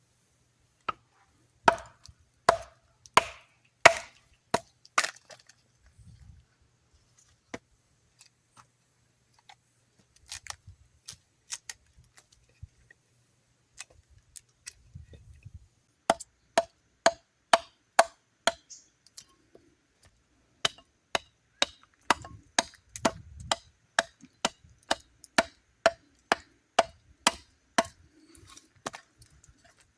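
Hatchet chopping wood in repeated sharp strikes. A few heavy blows come first, then scattered lighter taps for several seconds. About halfway through, a steady run of chops at roughly two a second begins.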